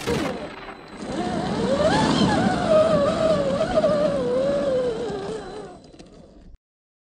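Electric drive motor and gears of a 1/10-scale RC Rubicon crawler whining under load as it climbs. The pitch rises about two seconds in and then slowly sags with the throttle, fading away and cutting off abruptly near the end.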